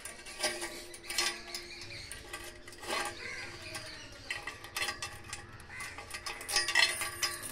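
Metal link dog chain clinking and rattling in irregular bursts as it is unhooked from a concrete post and handled.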